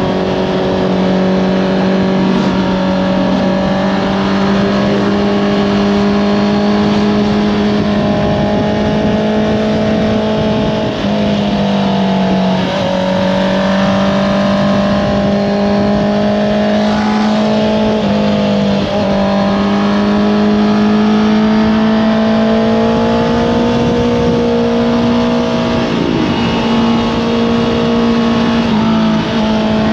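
Honda CBR650R's inline-four engine running at steady high revs through an Akrapovič exhaust. The note dips briefly and picks back up several times as the throttle eases off and rolls back on.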